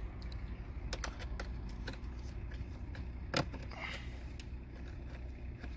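Sharp clicks and light knocks of parts being handled while a car's heater blower resistor is refitted and screwed back in. They come at uneven intervals over a steady low rumble, with the loudest knock about three and a half seconds in.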